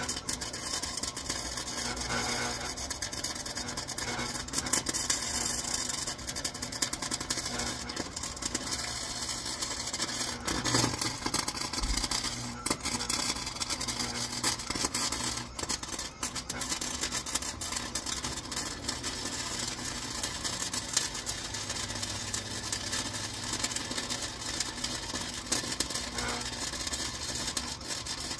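Welding arc crackling steadily on sheet-steel body panel, with sharper pops scattered through it, as a patch is welded in.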